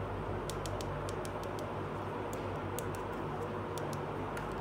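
A small plastic toy dish rack being handled, giving a dozen or so light, irregular clicks, over a steady background hum and hiss.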